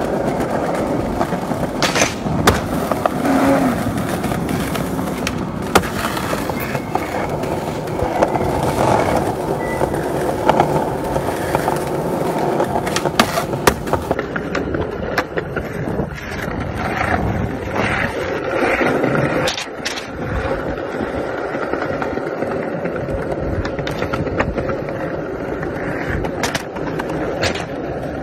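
Skateboard wheels rolling on concrete, with repeated sharp clacks of the board popping and landing during street tricks. The sound turns duller about halfway through.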